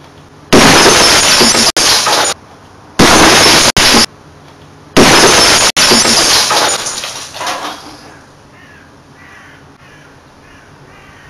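Large vintage CRT picture tube with no implosion band imploding when an antenna is thrown into it: bursting and shattering glass heard as three very loud blasts in the first six seconds, each cut off sharply, the last fading out over about three seconds. Crows then caw repeatedly.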